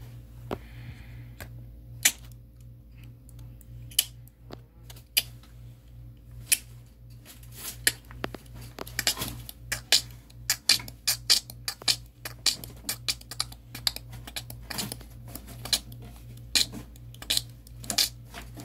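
Irregular sharp clicks and taps, like typing, coming thicker and faster from about eight seconds in, over a steady low hum.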